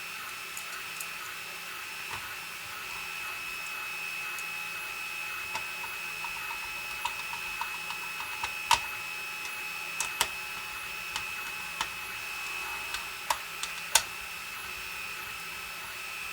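Scattered light clicks and taps of small parts and screws being set loosely into place in a plastic computer case, more frequent after the first few seconds. A steady high-pitched whine runs underneath.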